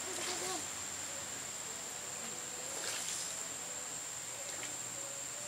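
A steady high-pitched insect drone over the even rush of river water, with a few brief soft swishes.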